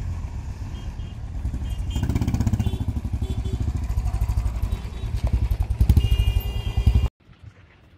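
Motorcycle engines running as the bikes pull away, with rapid, even firing pulses. The sound grows louder about two seconds in as a cruiser passes close, then cuts off abruptly about seven seconds in.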